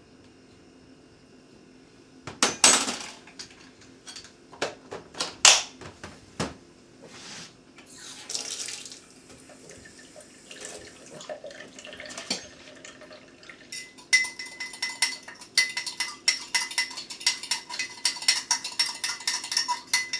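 Kitchen handling while mixing powdered milk: a few knocks and clatters of containers on the bench, a tap running briefly into a cup about halfway through, then a spoon stirring quickly in a cup, clinking rapidly against its sides for the last several seconds.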